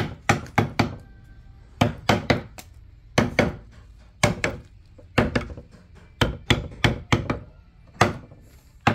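Mallet striking a wood-carving chisel into a solid teak fascia board, in short runs of two to four sharp knocks with brief pauses between them.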